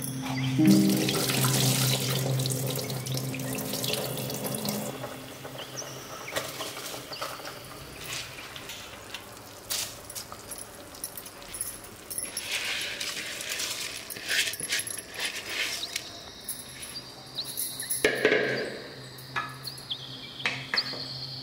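Water poured into a metal cooking pot of rice, in two separate pours, followed by a few knocks and scrapes of a wooden spoon against the pot near the end.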